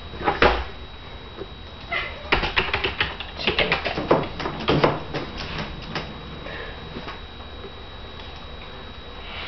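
Plastic mesh baby gate rattling and clattering as a toddler shakes and pushes at it, a quick run of knocks between about two and six seconds in.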